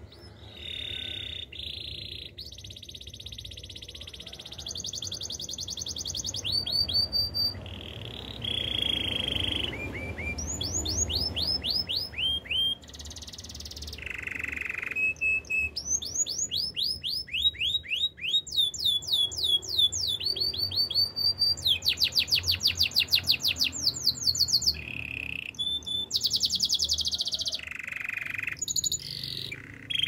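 Domestic canary singing a long, unbroken song of trills of fast repeated notes and phrases of quick falling whistles, with short breaks between phrases. The loudest and fastest trill comes about two-thirds of the way in.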